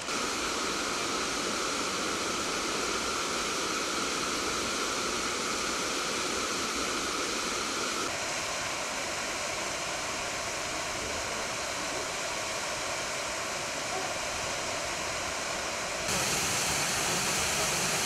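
Steady rush of a waterfall, falling water pouring down a rock cliff. The noise shifts in tone about halfway through and gets louder near the end.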